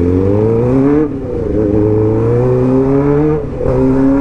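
2008 Suzuki GSX-R600's inline-four engine accelerating through the gears, its pitch climbing steadily and dropping briefly at two upshifts, about a second in and about three and a half seconds in.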